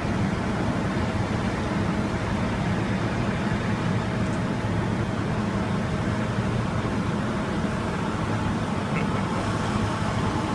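Heavy-haul super load rolling past: a steady low rumble of diesel truck engines and the tyres of a multi-axle trailer on the road.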